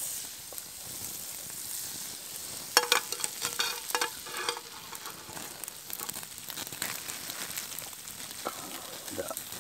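Butter melting and sizzling in a small non-stick frying pan over a campfire, a steady hiss. A cluster of sharp clicks and taps comes about three to four and a half seconds in.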